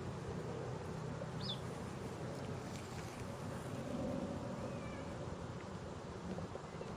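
Steady outdoor background noise with two brief high-pitched animal calls: a short rising chirp about a second and a half in, and a wavering call a few seconds later.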